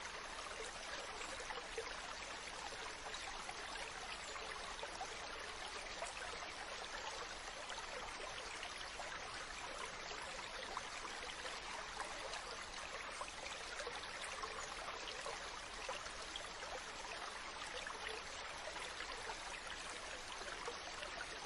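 Water flowing steadily and evenly, with no breaks or changes.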